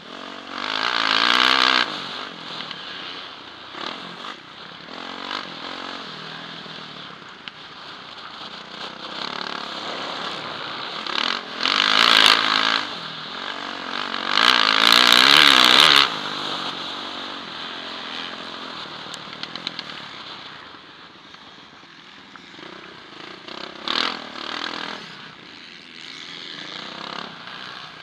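Yamaha motocross bike's engine, heard from the rider's helmet camera, revving up and falling away with the throttle. It surges loudest about a second in, around twelve seconds in and from about fourteen to sixteen seconds in, with a shorter surge near twenty-four seconds in.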